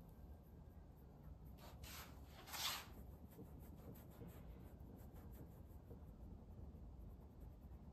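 Faint scratching of a thin brush laying oil paint on a stretched canvas, with one brief louder scrape about two and a half seconds in, then light, soft strokes.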